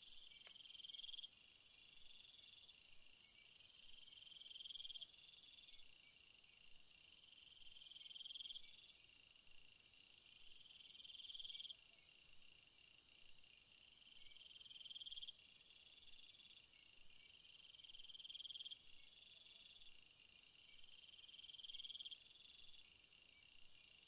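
Forest insect chorus: a steady high-pitched trill, with a lower chirring call that swells and then cuts off abruptly about every three seconds, and a softer pulsing call between them.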